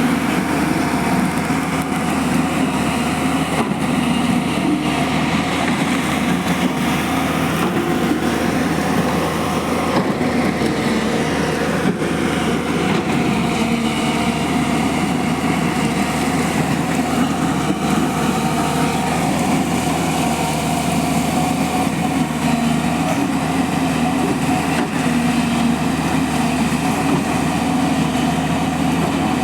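JCB excavator's diesel engine running steadily under work.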